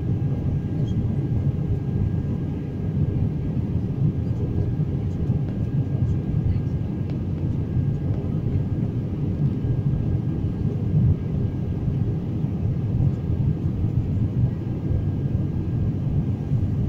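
Steady low rumble of an airliner in flight, engine and airflow noise as heard inside the cabin, with a faint steady whine above it.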